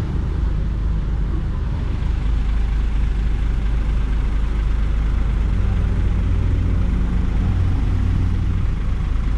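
Bus engine running with a steady low rumble and hum, slightly louder from about two seconds in; no horn sounds.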